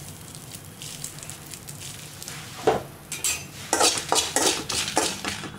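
A spatula stirs and scrapes dried red chillies around a metal kadai while they dry-roast, with a faint sizzle. From a little under three seconds in come a series of sharp metal scrapes.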